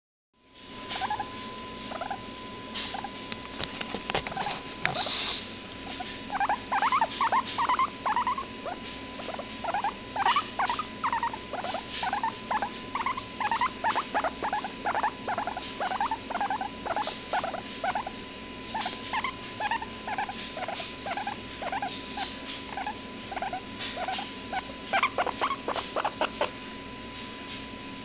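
Hairless guinea pig (skinny pig) squeaking: a long series of short squeaks, two or three a second, with some rustling clicks.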